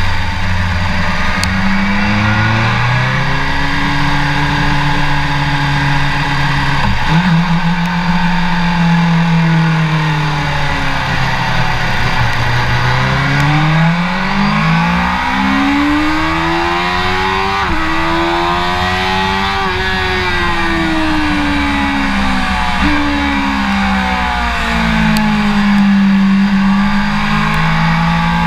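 BMW S1000RR's inline-four engine, heard from a camera mounted on the bike, pulling hard. Its pitch rises and falls repeatedly as it accelerates and slows, with a few sharp gear changes. The longest climb in revs comes about halfway through, peaks near two-thirds of the way, then falls away.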